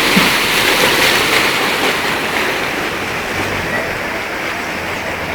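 Loud, steady rush of floodwater from a river overflowing its banks and water flowing down a flooded road, easing slightly through the second half.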